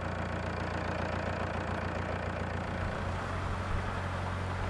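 Narrowboat's engine running steadily under way, an even low hum.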